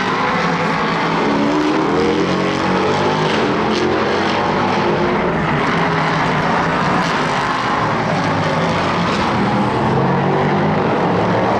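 Engines of several racing prototype sports cars running hard on the circuit, their engine notes rising and falling as the cars accelerate and pass.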